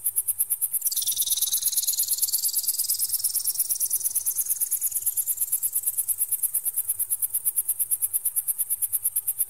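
Electronic bird-repeller sound: very high-pitched, fast and evenly pulsing beeps, joined about a second in by a sweeping tone that drops sharply and then glides slowly back up.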